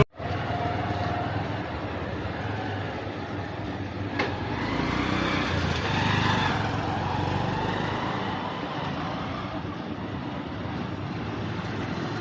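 Steady background noise like road traffic, with one sharp click about four seconds in.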